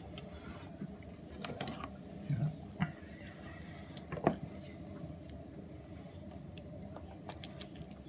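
Small handling noises as bird netting is cut and pulled away from a snake: scattered sharp snips and clicks of scissors over soft rustling, the loudest click about four seconds in.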